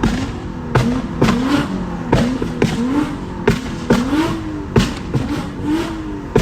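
Infiniti G35 coupe's 3.5-litre V6 being revved in quick repeated blips, each rising and falling in pitch, about two a second. Sharp cracks come with the blips.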